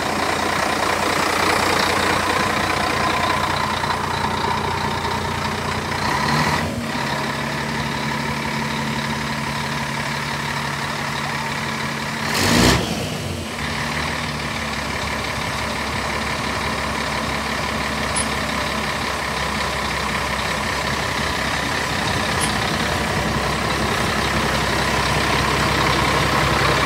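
Air-cooled twin-turbo V8 engine of a gritter lorry idling steadily, its note shifting about six seconds in. About halfway through there is one brief loud rush lasting about a second.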